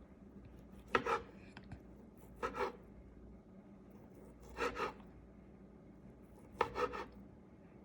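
Utensil chopping through sausage and scraping the surface beneath, in four short rasping bursts of two or three quick strokes each, about every two seconds.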